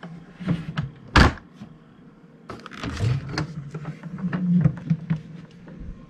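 A single sharp click about a second in, then a run of lighter clicks and knocks: hands handling the open lid and plastic body of a portable fridge-freezer.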